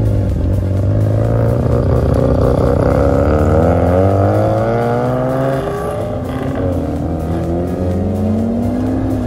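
Car engines revving hard as the cars accelerate away from a stop. The pitch climbs, drops back and climbs again through several upshifts, over a steady low engine drone.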